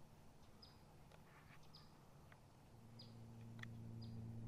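Faint bird calls: a short, high chirp that slides downward, repeated about once a second. About three seconds in, a steady low hum starts underneath.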